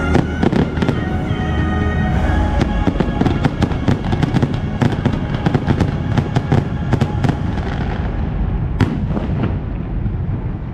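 Fireworks bursting in quick, dense volleys of bangs and crackles over loud orchestral show music. The bursts thin out near the end, with one last sharp bang about nine seconds in.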